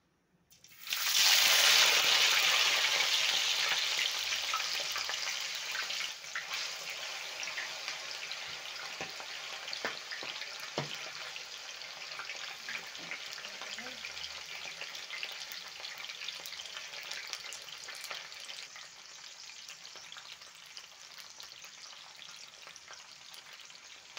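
Raw potato sticks going into hot cooking oil in a frying pan: a sudden loud sizzle starts about a second in, then slowly dies down to a quieter, steady frying sizzle with scattered small pops.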